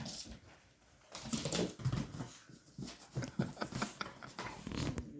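A chihuahua puppy and a larger dog play-fighting: irregular bursts of scuffling, clicking and low dog noises, with two short lulls.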